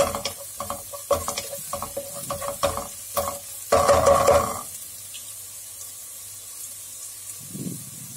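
Wooden spatula stirring green onion, chilli and lemon zest sautéing in butter in a nonstick pan, in quick scraping strokes with the loudest scrape about four seconds in. The stirring then stops and only a soft sizzle goes on.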